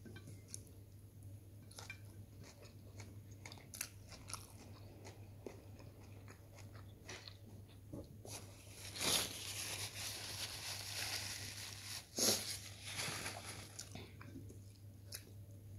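Close-up chewing and crunching of sautéed okra, with scattered small mouth clicks and a louder, denser stretch of chewing about halfway through.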